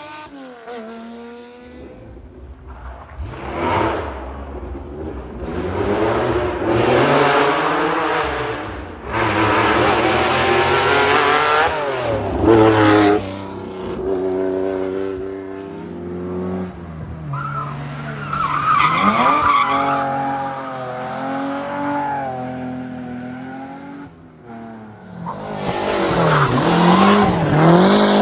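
Rally car engines revving hard and climbing and dropping in pitch through gear changes and lifts as cars drive the stage and pass, with tyre squeal from skidding.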